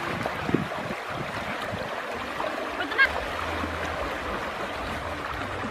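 Shallow river current rushing steadily and splashing around people wading as a cast net is gathered in by hand. A short high-pitched sound stands out about three seconds in.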